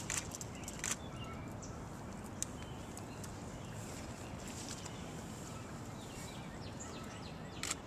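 A large fish splashing briefly in shallow floodwater as it is lowered in and released, a few short splashes and knocks in the first second, then steady outdoor background with faint bird chirps.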